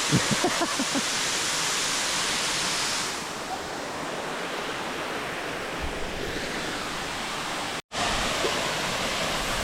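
Steady rushing of a waterfall, a dense hiss that softens in its upper range about three seconds in and cuts out for an instant near the end.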